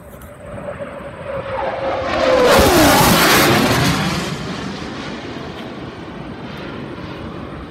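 F/A-18 Hornet jet making a low pass: its roar builds, peaks two to three seconds in with a tone sliding down in pitch as it goes by, then fades into a lingering rumble.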